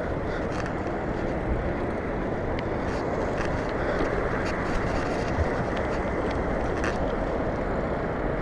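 Steady wind rush on the microphone and tyre noise from a mountain bike riding along an asphalt road, with a few faint clicks and rattles from the bike.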